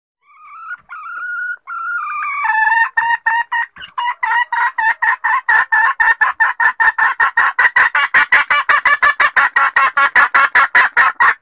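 Red junglefowl hen calling: a couple of drawn-out whining notes, then a fast run of short clucks that quickens to about five a second and cuts off abruptly. It is a hen's call to males, used as a lure for wild roosters.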